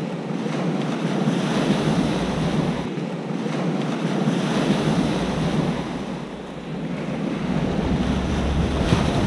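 Small waves breaking and washing up a pebble beach, the surf swelling and easing. Wind buffets the microphone with a low rumble from about halfway through, stronger near the end.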